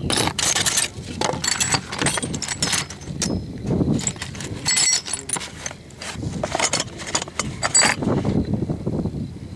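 Loose steel tools (files, rods and steel balls) clinking and rattling against each other in a cardboard box as a hand sorts through them, in quick irregular clinks.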